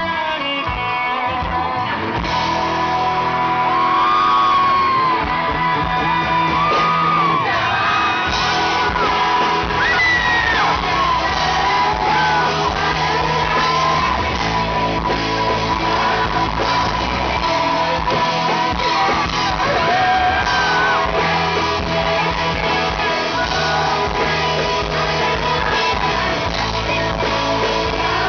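Live pop-rock band playing over a PA, with electric guitars and a lead vocal singing, recorded from within the audience. Fans shout and scream over the music throughout.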